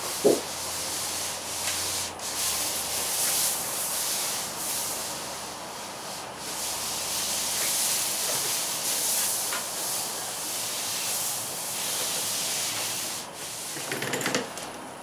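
Palms sliding and rubbing across a fiberglass-reinforced Filon sheet in repeated sweeping strokes, pressing it down onto the spray adhesive so it bonds. A short squeak comes about a third of a second in. Near the end a hand roller is run over the sheet.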